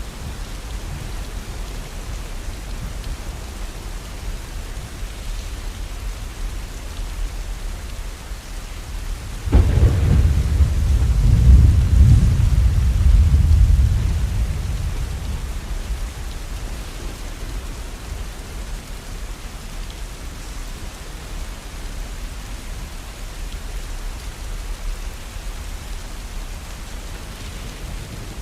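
Steady rain, with a roll of thunder that breaks suddenly about a third of the way in, rumbles deeply for several seconds and dies away.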